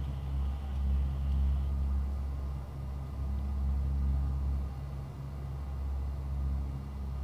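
A C-130H Hercules's four Allison T56 turboprop engines and propellers running at 100 percent RPM, heard inside the flight deck as a steady low drone with several constant humming tones.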